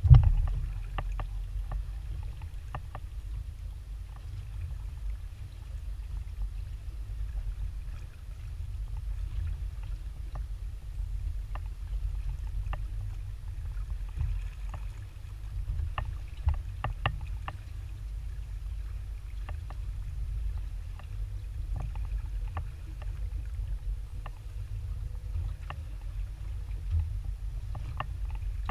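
Small aluminium boat at sea: a steady low rumble of wind and water against the hull, with scattered sharp ticks and a loud knock at the very start.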